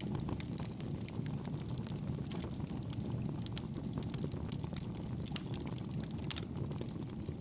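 Wood fire in a fireplace crackling, with frequent irregular sharp pops and snaps over a steady low rumble of the flames.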